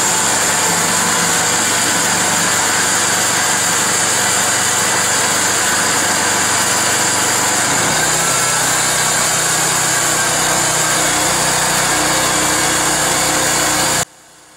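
Harbor Freight portable bandsaw mill running under load, its gas engine driving a 1½-inch band blade through a log. The engine's low note changes about eight seconds in as the load shifts, and the sound cuts off abruptly near the end.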